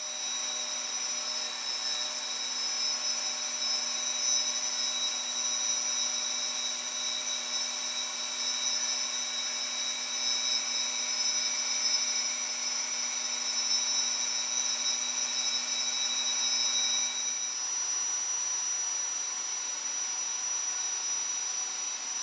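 Mil-Tec FCLP-10-10 low-profile indexable face mill spinning in a CNC machining center and taking a light finish cut across aluminum plate: a steady high-pitched whine over a hiss. About three-quarters of the way through, some of the tones drop out and the rest runs on unchanged.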